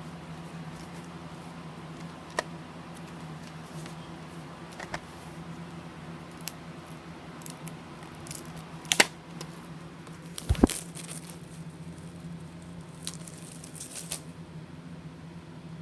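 Handling noises from a VHS tape in its sleeve being turned over by hand: scattered taps and clicks, two sharp knocks about nine and ten and a half seconds in, and brief rustling near the end, over a steady low hum.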